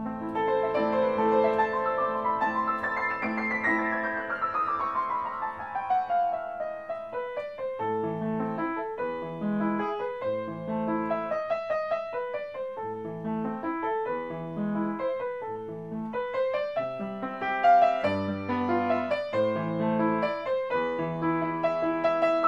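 Background piano music: a quick descending run of notes over the first few seconds, then steady chords over a bass line.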